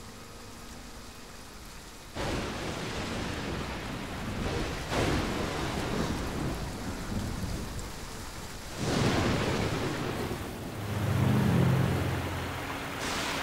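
Heavy rain that comes in suddenly about two seconds in, with thunder rumbling over it, swelling louder three times.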